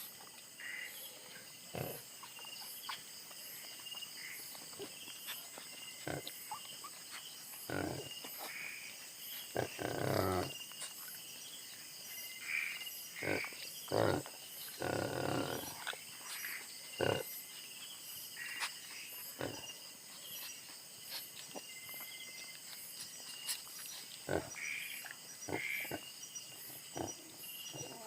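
Wild pig giving birth, giving short deep grunts every few seconds, with a couple of longer grunting spells. Insects chirr steadily behind it.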